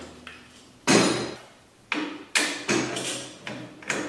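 Metal knocks and clunks as an upside-down go-kart engine is set into the steel frame's mounting brackets and the top mounting bolt is pushed and pounded through. There is one heavy knock about a second in, then a run of quicker knocks in the second half.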